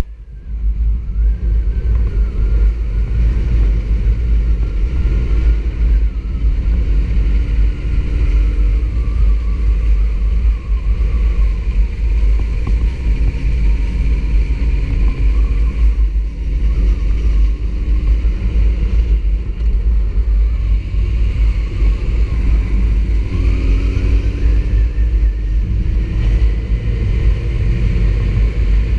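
Sport motorcycle riding along a road, heard from the rider's seat: a steady low rumble of engine and wind on the microphone, with the engine note faintly rising and falling as it speeds up and slows.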